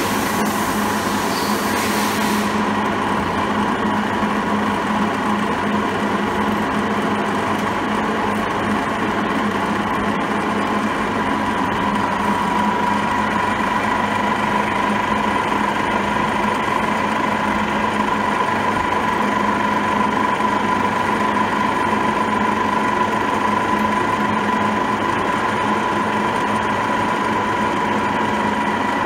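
WMW Heckert FQW 400 T NC universal milling machine running under power: a steady mechanical hum with a constant high whine.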